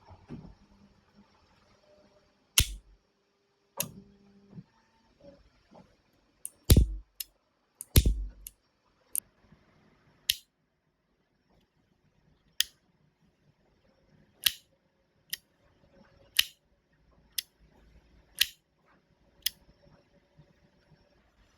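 Airsoft revolver being worked and fired: a series of sharp, irregularly spaced snaps and mechanical clicks, about fifteen in all. The three loudest, near 3, 7 and 8 seconds in, carry a low thump.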